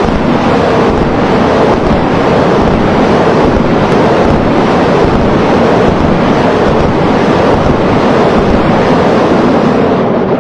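Multiple rocket launchers firing a salvo: a loud, steady rushing roar of the rockets' motors.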